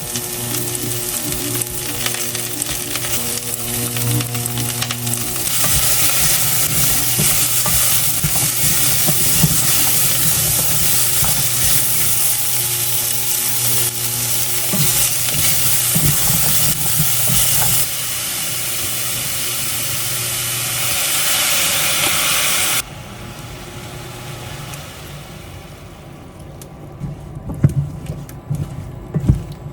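Food sizzling in a hot frying pan while it is stirred. The sizzle gets louder about five seconds in and cuts off sharply about 23 seconds in, leaving quieter scattered clatter and knocks.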